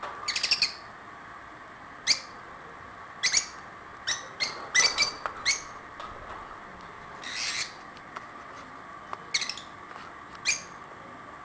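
Caged lovebirds calling: short, sharp, high-pitched chirps, some single and some in quick runs, with one slightly longer call past the middle, over a steady faint hum.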